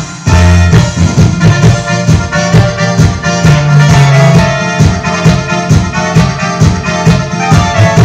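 A MIDI file playing back through an HDS Pro.Sound.2 accordion sound module: accordion-style music with a steady beat and strong bass notes.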